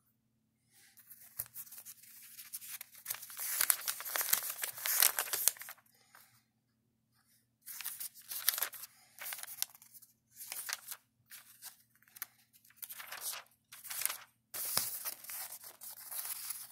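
Paper pages of a softcover booklet being turned and handled by hand, dry rustling: a long run of page turning in the first few seconds, then a string of short separate page flips.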